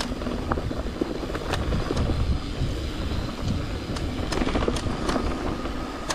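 Mountain bike riding a dirt trail: wind buffeting the microphone over a steady low rumble from the tyres, with frequent sharp clicks and knocks as the bike rattles over bumps.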